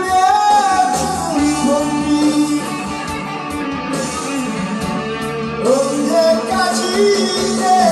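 A man singing a slow Korean ballad to his own electric guitar, with long held notes that slide in pitch.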